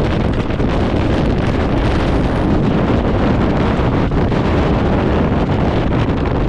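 Gale-force mountain wind, over 35 m/s, buffeting the microphone in a loud, unbroken rush.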